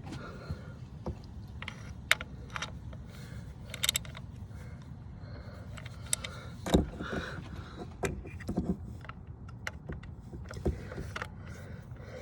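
Ratchet fitted with a T40 Torx bit clicking and clinking in short, scattered bursts as bolts are snugged down, with one louder metal knock a little past halfway.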